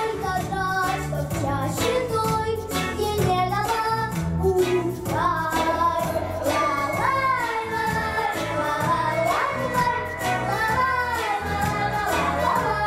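A young girl singing a pop song into a handheld microphone over a backing track with a steady beat. Her voice slides up and falls back in several swoops through the middle and latter part.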